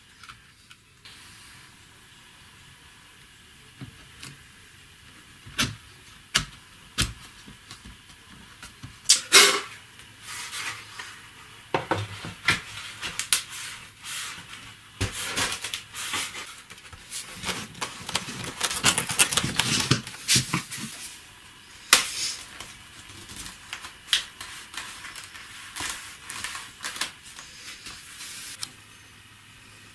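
Hard plastic parts knocking, clicking and scraping as a cyclone dust separator is set onto a plastic drum's lid and hoses are fitted to it. The sharp knocks come irregularly and are busiest around the middle.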